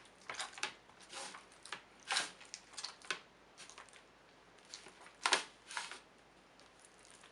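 Hands kneading sticky homemade cold porcelain clay in a container: irregular soft squishes and taps, the loudest about five seconds in.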